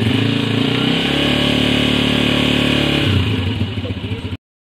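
Honda 125 motorcycle's single-cylinder four-stroke engine being tuned: it is revved up about a second in, held at higher revs, then drops back to idle just after three seconds. The sound cuts off abruptly near the end.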